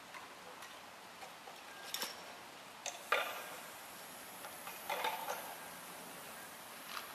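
Aerosol spray paint can spraying onto a wall: two short hisses, about three and five seconds in, among scattered light clicks.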